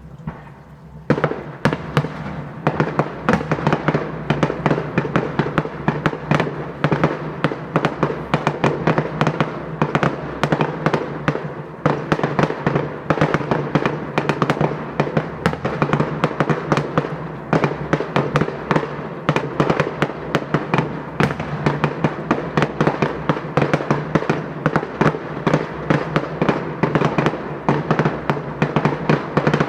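Fireworks going off in a dense, continuous barrage of rapid bangs and crackles, starting about a second in.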